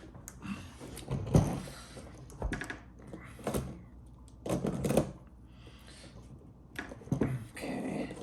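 Irregular clicks, knocks and short clattering of skateboard parts being handled as wheels are fitted onto the truck axles.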